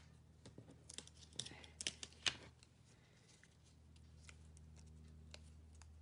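Fingernails picking and peeling the paper backing off foam adhesive Dimensionals stuck to a cardstock strip: a cluster of small sharp ticks and scratches in the first half, the loudest about two seconds in, then a few faint ticks over a low steady hum.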